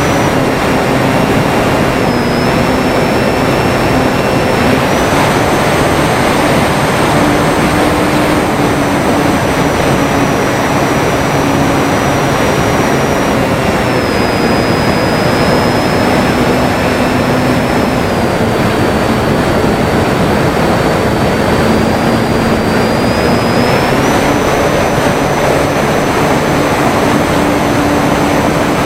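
Electric motor and propeller of a Durafly Tundra RC model plane whining in flight, the pitch stepping down and back up several times with throttle changes, under heavy wind noise on the microphone.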